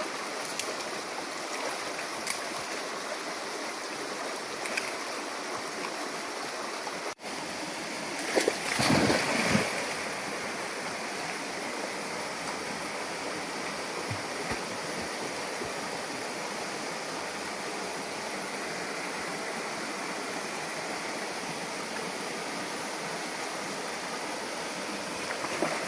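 A stream running steadily, with a louder burst of noise lasting about a second and a half, some eight seconds in.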